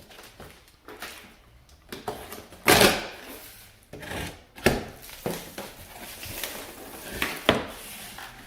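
A cardboard parts box being opened and its contents handled: rustling cardboard and packing with several sharp knocks and clatters, the loudest a long scraping rustle about three seconds in.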